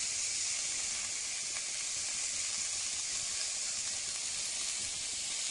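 Fresh curry leaves, sliced garlic and green chillies sizzling in hot sesame oil in an aluminium pot: an even, high hiss as the water from the freshly added leaves fries off.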